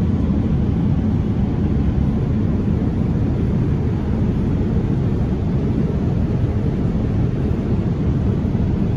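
Steady, deep cabin noise of an airliner in cruise flight, heard from inside the passenger cabin.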